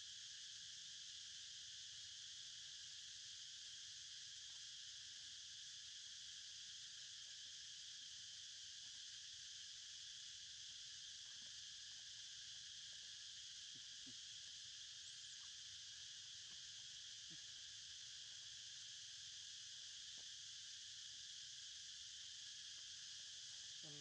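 Faint, steady insect chorus: a continuous high-pitched buzzing drone that does not change, with a few faint scattered clicks.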